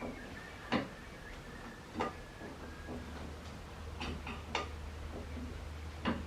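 Spanner working on the rear brake-line unions: about five separate sharp metallic clicks and clinks, a few with a brief ring.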